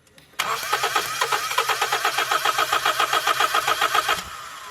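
Honda B20B four-cylinder engine being cranked by its starter motor, a rhythmic churning of about seven pulses a second for nearly four seconds, then stopping. The engine does not catch: it is a no-start that the owner traces to weak, intermittent ignition spark.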